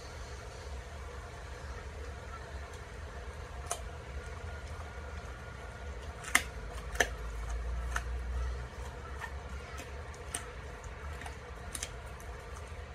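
Belgian Groenendael shepherd dog chewing a raw chicken frame: scattered sharp cracks of bone being crunched, the two loudest close together about halfway through, over a steady low hum.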